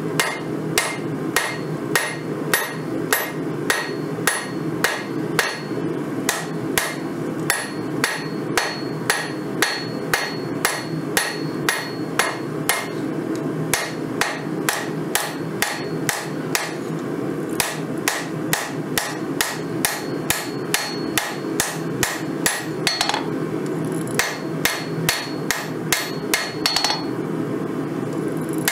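Hand hammer forging a red-hot 5160 steel knife blank on an anvil: regular blows, about two a second, each followed by a short metallic ring from the anvil, over a steady low rumble.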